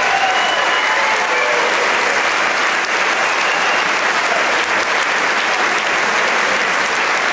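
Theatre audience applauding steadily, with a few cheers and whoops over the clapping in the first few seconds.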